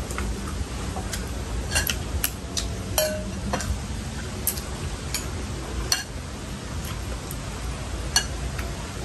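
Eating utensils clinking against bowls and dishes as people eat: a handful of scattered sharp clinks, one about three seconds in ringing briefly.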